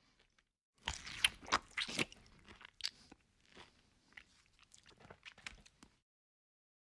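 Close-miked chewing of a mouthful of fried fish. A run of loud crunches starts about a second in, then comes softer, sparser chewing, and it cuts off suddenly near the end.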